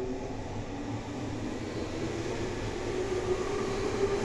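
Electric train's traction motor and inverter whine, several tones slowly rising in pitch over a steady rumble as a train pulls away from the platform.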